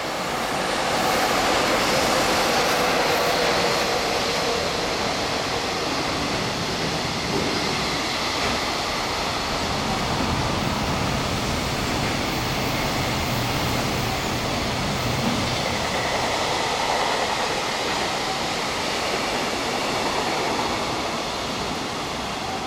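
An EF66 DC electric locomotive passes at speed, followed by a long rake of container wagons rolling past on the rails. The steady noise of wheels on track is loudest in the first few seconds as the locomotive goes by, then holds level as the wagons keep coming.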